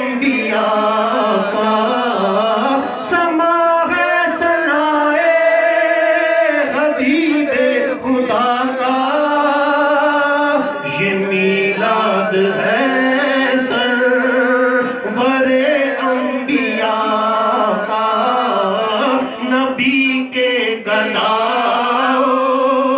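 A man singing an Urdu naat into a microphone, in long, wavering held notes with short breaks between phrases.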